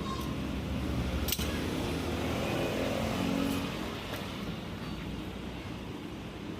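Rusi RFI 175 motorcycle engine running steadily at idle, with one sharp click about a second in.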